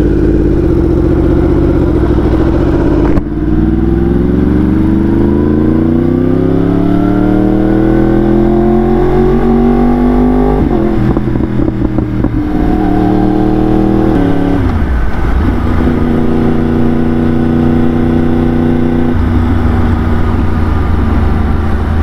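2018 Yamaha R1's crossplane inline-four, fitted with an Austin Racing exhaust, pulling hard. Its pitch climbs steadily for several seconds, then drops sharply at an upshift and settles into steady cruising, with a couple more gear changes after that.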